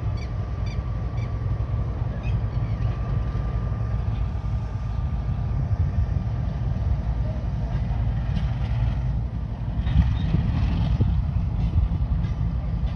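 Diesel locomotive hauling a train of wagons along the track: a low, steady rumble, with a faint steady whine above it.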